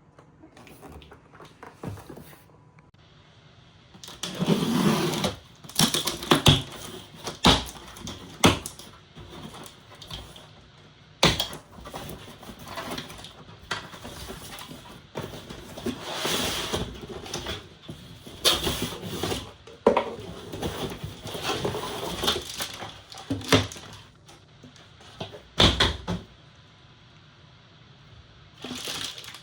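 Cardboard laptop packaging being handled and opened: irregular rustling and scraping with several sharp knocks.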